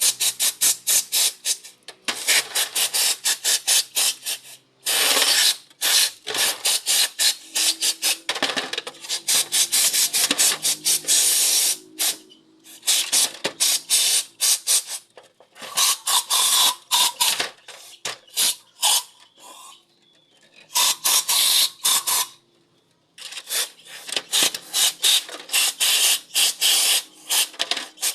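Rapid, repeated scraping and clicking of a tool working hard carbon deposits off an EGR valve, in runs of several seconds broken by short pauses.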